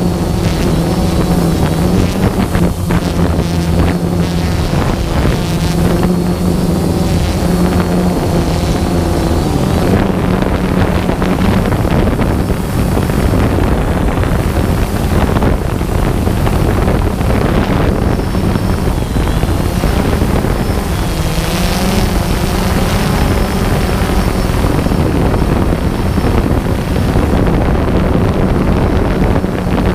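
Multirotor drone's motors and propellers humming steadily and loudly, heard from the drone's own camera, with wind buffeting the microphone. The pitch wavers for a couple of seconds a little past the middle as the drone manoeuvres.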